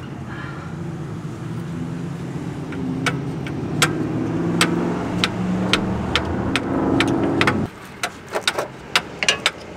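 A motor vehicle engine running close by, growing a little louder, then cutting off abruptly about three-quarters of the way through. Sharp metallic clicks and taps of hand tools on metal from about three seconds in, several in quick succession after the engine stops.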